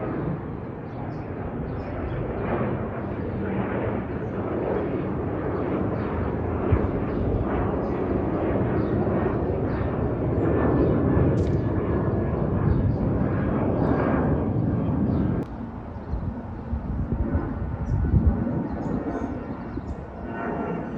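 Jet airliner engines rumbling and growing louder as the plane passes. The sound cuts off suddenly about 15 seconds in, and a quieter, uneven rumble follows.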